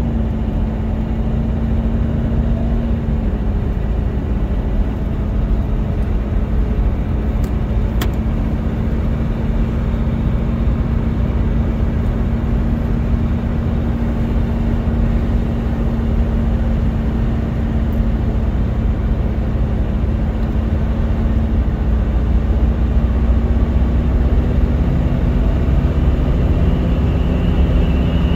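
1973 Mercedes-Benz 450SL's 4.5-litre V8 cruising steadily, heard from inside the cabin over a continuous tyre and road rumble. The engine hum dips slightly about three seconds in and creeps up a little near the end.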